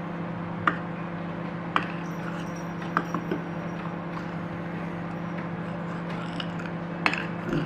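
A few light clinks and taps of a spoon against a dish, with some scraping, as turmeric is added to the flour coating mix. A steady low hum runs underneath.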